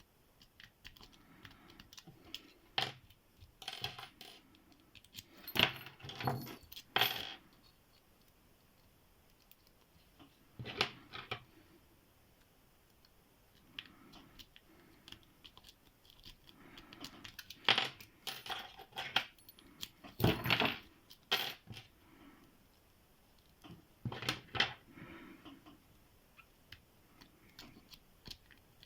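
Rake pick being worked in a Qualtec padlock's keyway under a tension wrench: bursts of rapid metallic clicking and rattling with quiet pauses between them, and a heavier metallic knock about two-thirds of the way through.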